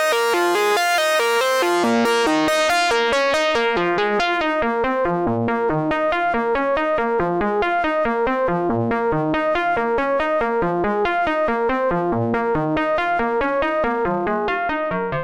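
Behringer 2600 analog synthesizer playing a fast, repeating sequence of notes, about six a second. The tone is bright at first and turns duller about three seconds in.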